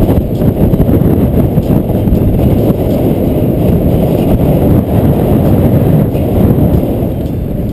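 Loud wind buffeting over the camera's microphone during a fast downhill bicycle ride, a dense, fluttering rush with no voices.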